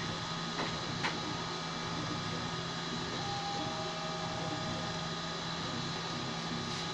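FDM 3D printer printing, with a steady hum and a short higher whine from its stepper motors a few seconds in as the print head moves. A couple of light ticks come about a second in.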